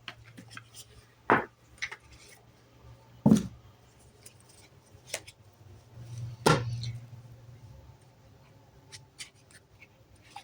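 Tarot cards being handled and set down on a table: light rustling and ticks, with three sharp slaps of cards on the table.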